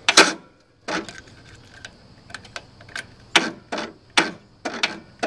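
Sharp, irregular clicking from a Craftsman LT2000 riding mower's ignition as the key is turned with a dead battery, about a dozen clicks with the first the loudest; the engine does not crank.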